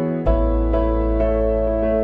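Background music: a soft new-age keyboard melody, notes struck about twice a second, with a deep bass note coming in about a quarter second in.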